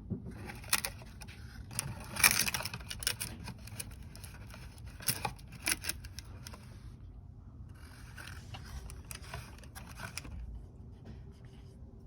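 Handling noises as a new oil filter's rubber gasket is coated with oil: scattered light clicks, taps and scrapes, the busiest and loudest about two seconds in, with a short lull around the middle.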